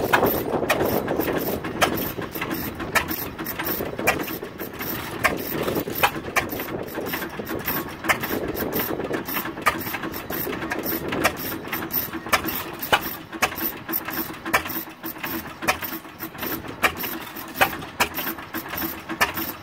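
Antique stationary gas engines, a 6 hp Galloway hit-and-miss engine and a Fairbanks Morse, running: sharp mechanical clicks and knocks about once a second over a low chuffing that fades somewhat about halfway through.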